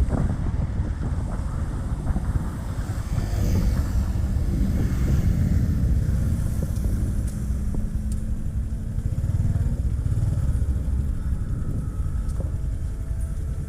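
Motorcycle running while being ridden, a steady low rumble throughout.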